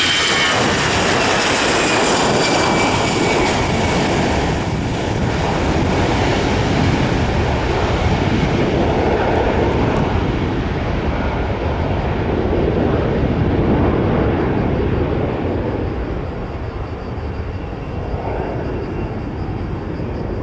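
Airbus A320-family airliner's twin CFM56 turbofan engines at takeoff thrust as it lifts off and climbs away. A loud, steady jet roar, with a whine that falls in pitch over the first few seconds as the jet passes. The roar eases a little near the end.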